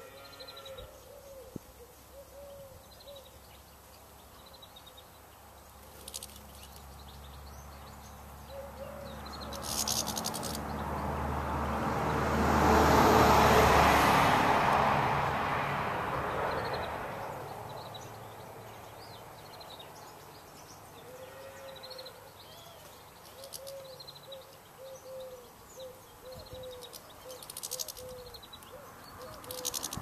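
Garden birdsong: a pigeon's cooing phrases repeat low in the background with faint chirps of small birds. The loudest sound is a passing engine that swells to a peak about halfway through and fades away over several seconds.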